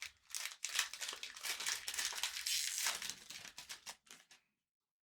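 Plastic foil trading-card pack wrapper being torn open and crinkled in the hands, a dense crackling that stops about four and a half seconds in.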